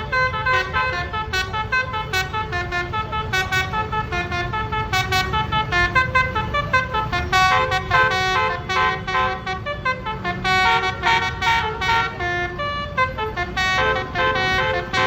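A Basuri telolet multi-tone musical air horn on a medium bus plays a quick melody of short notes, stepping up and down in pitch without a break, over a steady low engine and traffic rumble.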